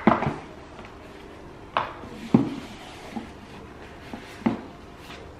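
A GoPro camera's case and packaging being handled and opened: a handful of sharp knocks and clicks spaced irregularly, the loudest about two and a half seconds in.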